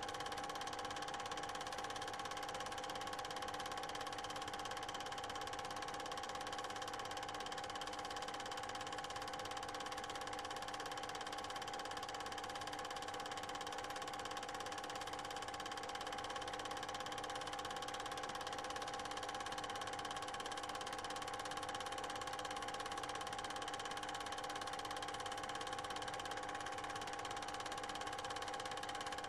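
8mm cine projector running: a steady, even mechanical hum of several fixed pitches.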